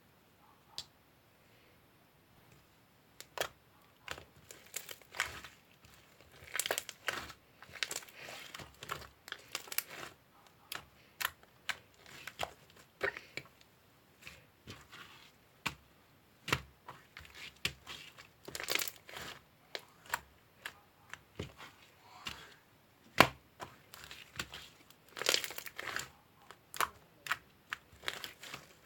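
Crinkling and rustling of something being handled up close, with irregular sharp clicks and taps. It begins about three seconds in.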